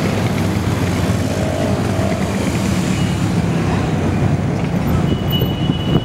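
A column of motorcycles riding past one after another, their engines running together in a steady mix.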